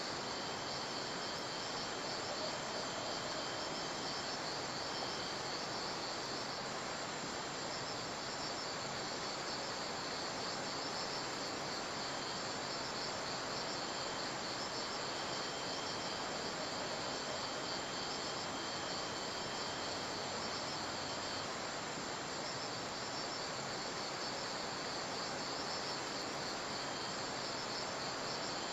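Crickets chirping steadily over an even background hiss.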